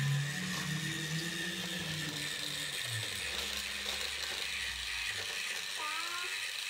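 Motorized Thomas TrackMaster toy engine running along plastic track, its small electric motor and gears going steadily.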